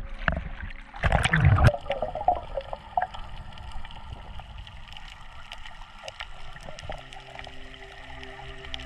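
Water gurgling and bubbling around a snorkeller, loudest in a burst about a second in, then quieter water sound with scattered small clicks and a faint steady hum.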